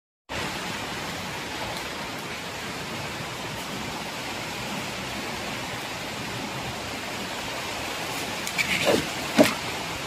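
Steady hiss of a heavy rainstorm with strong wind. Several sharp knocks come near the end, the loudest about half a second before it.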